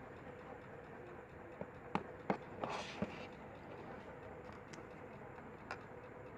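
A few small clicks and taps with a short scratch, as tools and phone parts are handled on a repair bench, over a steady low hiss and faint hum.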